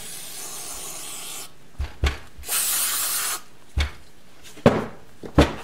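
Aerosol brake cleaner hissing from a spray can. The first spray stops about a second and a half in and a second short spray comes about a second later. Several light knocks and rubbing follow as the metal caliper is handled and wiped in a rag.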